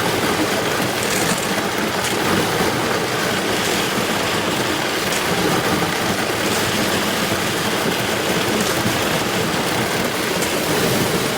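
Canoe hull pushing through slushy river ice: a steady, loud hiss and crackle of slush and ice fragments scraping along the hull.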